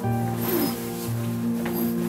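Soft instrumental background music with held notes, and a faint rustle of a fabric storage bag being opened about half a second in and again near the end.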